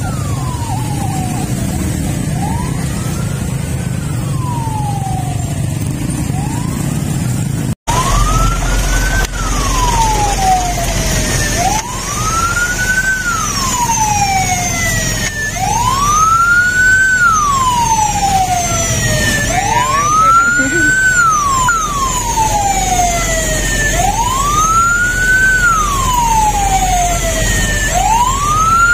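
Ambulance sirens wailing, each rising and falling about every three and a half seconds, with a second, higher siren overlapping out of step. Vehicle engines and traffic rumble beneath.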